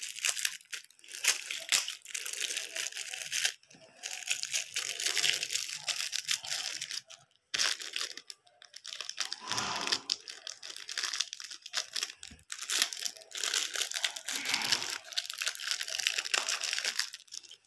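Thin clear plastic toy packets crinkling and tearing as small toys are unwrapped by hand: a busy run of crackles with a couple of short breaks.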